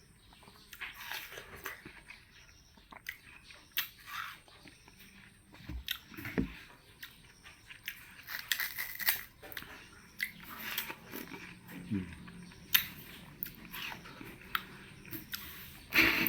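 A person biting into and chewing watermelon close to the microphone: irregular short bites and mouth clicks with soft chewing in between.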